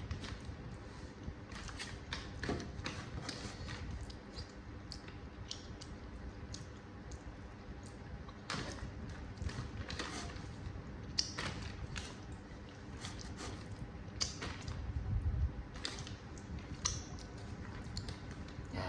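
A person eating a bowl of saucy noodles: chewing and mouth sounds with irregular short clicks of a spoon against the bowl, over a faint steady hum.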